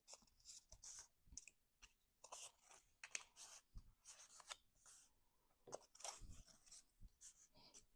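Faint, irregular rustling and scraping of cardstock being handled and folded, in short crinkly strokes.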